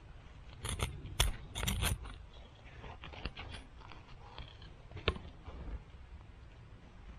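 A small garden trowel scraping and digging into soil, with a quick run of sharp scrapes about a second in, followed by scattered softer scratches and clicks as loose soil is scooped out by hand.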